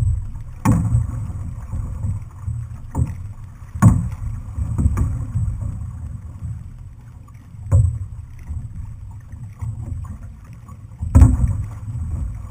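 Outrigger canoe under paddle: a steady low rumble of wind buffeting the camera microphone and water along the hull, broken by about half a dozen sharp knocks at uneven spacing, the loudest near the end.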